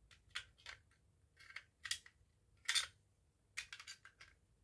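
Small plastic clicks and scrapes as the glass element is worked into a fire alarm call point's plastic front cover. The clicks come in a scattered handful, with the loudest about two and three seconds in, and a quick run of them near the end.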